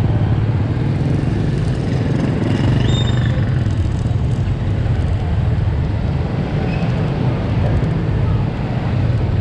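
Steady low rumble of road traffic and running vehicle engines, with faint voices in the background.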